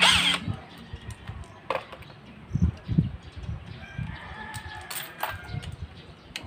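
A rooster crowing once, about four seconds in, for a second and a half. It comes after a short burst from an electric impact wrench at the very start and two dull knocks from the engine casing being handled.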